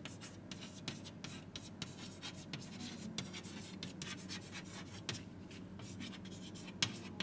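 Chalk writing on a blackboard: a quick run of short scratching and tapping strokes as words are written, with one sharper tap near the end. A faint steady low hum lies under it.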